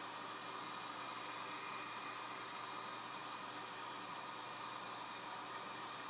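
Heat gun blowing hot air, a steady, even hiss that does not change, while it warms the phone's glass to about 160°F to soften the adhesive under it.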